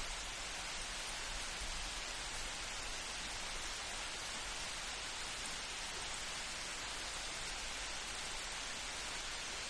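Steady light rain falling, an even hiss with no thunder.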